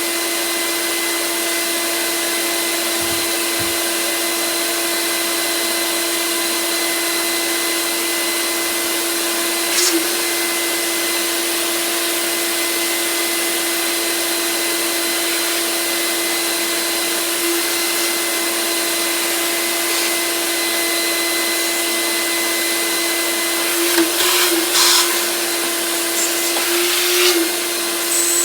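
Eureka upright vacuum cleaner running steadily, a constant hiss of airflow with a steady motor tone. A few brief knocks come around the middle and again near the end.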